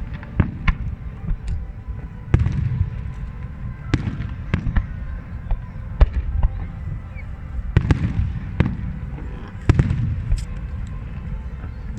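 Large fireworks display: shells bursting in a string of sharp bangs, roughly one a second, over a continuous low rumble.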